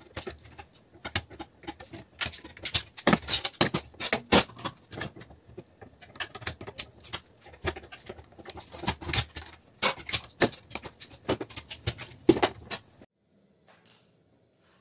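Pliers prying and bending the sheet-steel case of a fluorescent light ballast clamped in a vise: a rapid, irregular run of metal clicks, creaks and scrapes that stops abruptly near the end.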